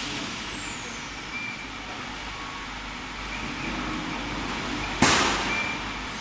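Steady hiss and whir of a CO2 laser cutting machine's air and fans running, with one sharp loud crack about five seconds in that dies away quickly.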